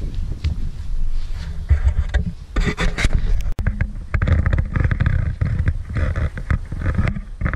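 Handling noise on a GoPro Hero 5 carried on a pole: a low rumble with irregular scraping and rubbing against the camera, busiest from about halfway through.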